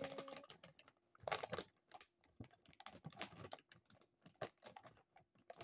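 A plastic bag of Pedigree dry dog food being handled, crinkling in faint, irregular crackles and rustles.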